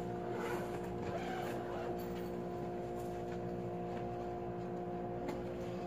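Steady mechanical hum at a fixed pitch, with a faint knock about five seconds in.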